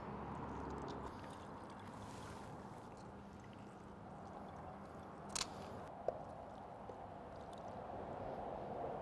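Lemon and lime halves squeezed by hand through a small mesh strainer into a glass jar: faint wet squishing, with one brief tap about five seconds in.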